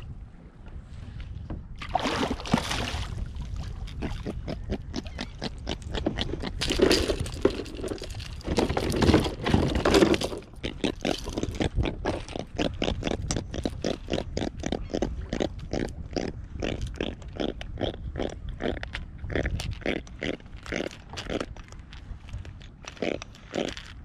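A freshly landed jack (toro) grunting in a long train of short, even croaks, about three a second. Before it, in the first half, come a few seconds of water splashing.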